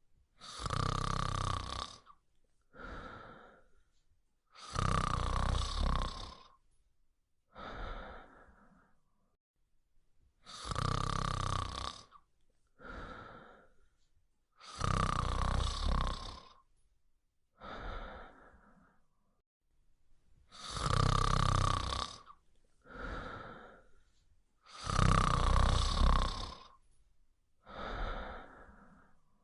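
Dog snoring loudly in a steady rhythm: a long loud snore about every five seconds, each followed a moment later by a shorter, weaker one.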